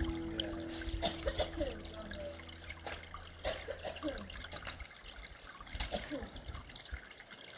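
Faint trickling water, with small gurgles and drips, as background music fades out over the first few seconds.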